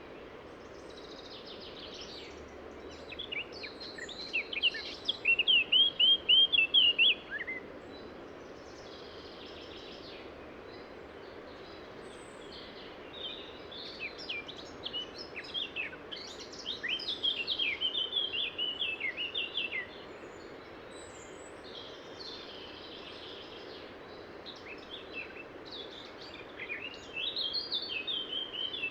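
A songbird singing three phrases of rapid, repeated falling notes, each ending on a lower note; the first phrase is the loudest. Under it runs a steady rush of river water.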